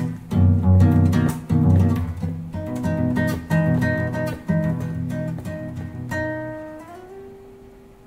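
Guitar music: plucked notes over a bass line in a steady rhythm, ending about six seconds in on a final chord that rings on and fades away.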